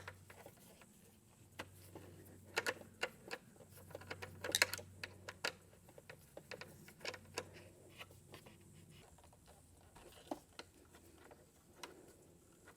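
Scattered light clicks and taps of a hand tool and metal parts while the side bolts holding a Honda Grom's headlight are undone, with a small cluster of clicks a few seconds in.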